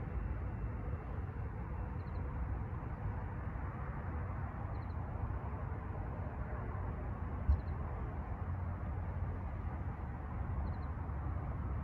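Steady low outdoor rumble, with a faint high triple chirp repeating about every two to three seconds and a single short knock about seven and a half seconds in.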